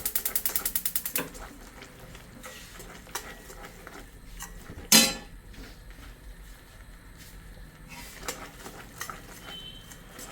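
A metal spoon stirring and scraping besan roasting in ghee in a pan, with one loud clank of utensil on pan about five seconds in. A fast, even clicking runs for about the first second.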